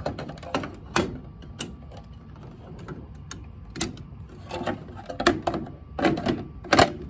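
Irregular clicks and knocks from a Standard Electric round fire alarm pull station and its plastic Stopper II cover being handled while the pull station is reset by hand, with most of the knocks in the second half.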